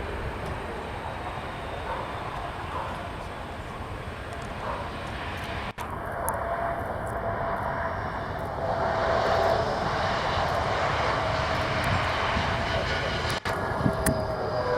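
Airbus A321neo's Pratt & Whitney geared turbofan jet engines on arrival, growing louder about halfway through as the jet comes closer, with a steady whine that falls slightly in pitch.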